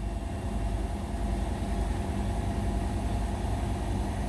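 Indesit BWE101683 washing machine in the early, low-speed stage of its final spin (around 300 rpm), its drum turning with a slightly unbalanced load: a steady low hum with a fast, even pulse underneath.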